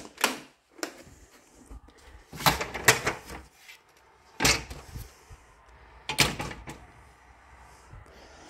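Household knocks and clunks in about five short separate bursts: a door being handled, opened and shut.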